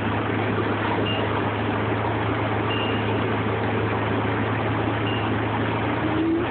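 Interior noise of a New Flyer DE40LFR diesel-electric hybrid bus under way: a steady drivetrain hum and road noise, with a faint rising whine coming in near the end.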